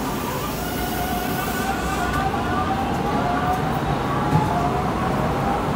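Siemens P2000 light rail car beside a station platform, its electrical equipment giving a steady whine of several tones that drift slowly in pitch over a low rumble.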